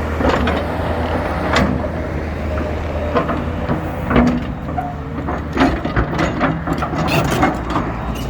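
Hyundai excavator's diesel engine running with a steady low hum, with repeated sharp metallic clanks and knocks, most of them in the second half.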